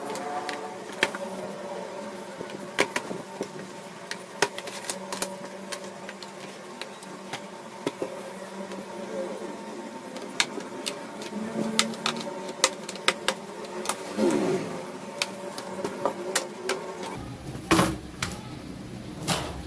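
Irregular sharp clicks and taps of small plastic and metal parts as a laptop is opened up by hand, over a steady low hum.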